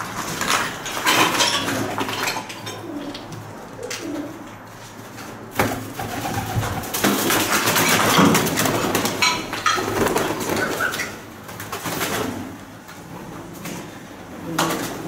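Pigeons cooing in a short run of low calls, over footsteps and rustling handling noise that is loudest in the middle stretch.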